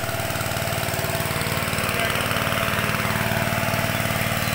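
A small engine running steadily at an even speed, with a fast regular chugging pulse.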